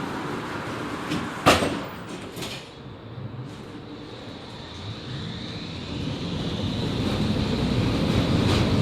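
Končar TMK 2200 low-floor tram at a stop: a loud knock about a second and a half in, typical of the doors shutting. From about five seconds the tram pulls away, its traction motors rising in pitch and the running rumble growing louder.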